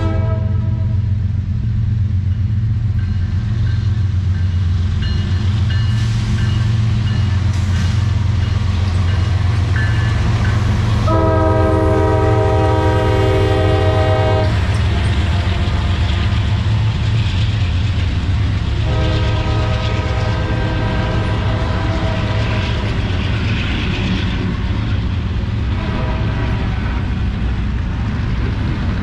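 Norfolk Southern diesel freight locomotives passing close by at speed: the engines rumble deeply throughout while the air horn sounds several long blasts, the loudest starting about eleven seconds in. By the end, double-stack container cars are rolling past.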